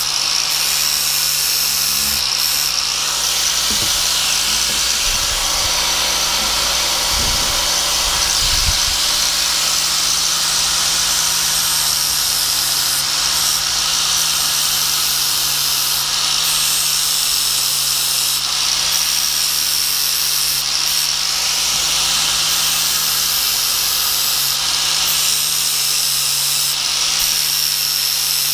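Angle grinder with a flap disc running steadily and grinding the steel cutting teeth of a hedge trimmer blade, a continuous high whine and rasp of metal being ground. The grinding note changes briefly every few seconds as the disc is worked across the teeth.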